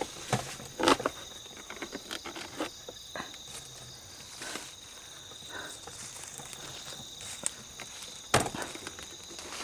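Night insects chirping in a steady high drone, with scattered rustling crackles like steps in dry leaf litter, loudest about a second in and near the end; the camper likens the sound to footsteps walking.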